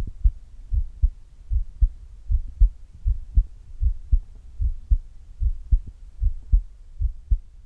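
A human heartbeat heard at the chest: a steady lub-dub, each beat a pair of low thumps, a little more than one beat a second.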